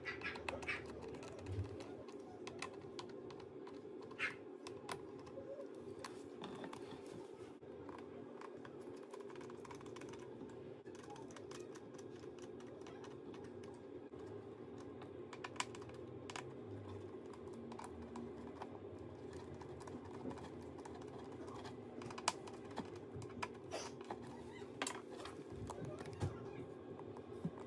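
Faint scattered clicks and ticks of a precision screwdriver turning the display hinge screws of a MacBook Pro 13-inch 2017 (A1708), and of the laptop being handled, over a steady low hum.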